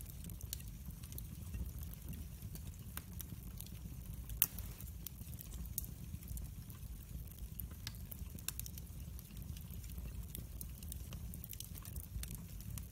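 Split wood logs burning in a fireplace, crackling with scattered snaps and pops. One sharper pop stands out about four and a half seconds in, over a steady low rumble.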